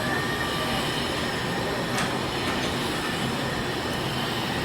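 Steady mechanical rumble and hiss, with a single short click about two seconds in.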